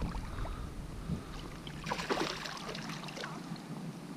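Wind rumbling on the microphone, then a short splash about two seconds in and lighter water sloshing: a hooked fish thrashing at the surface beside a kayak.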